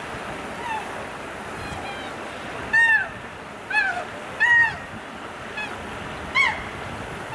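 A series of short, honk-like animal calls, about six of them at irregular intervals, each brief with a pitch that arches and falls. The loudest come near the middle.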